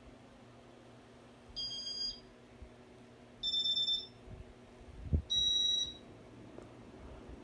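Three electronic beeps from a Casablanca Four Seasons ceiling fan's control, each about half a second long and roughly two seconds apart, as the fan runs through its demo mode.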